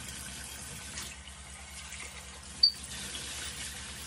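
Kitchen tap running steadily while bulgur wheat is rinsed in a pot, with one sharp clink about two and a half seconds in.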